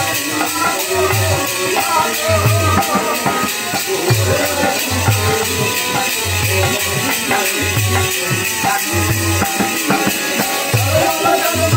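Live folk drumming and percussion: low barrel-drum strokes in a steady beat about once a second, under fast, continuous jingling of hand cymbals or rattles, with a wavering melody over the top.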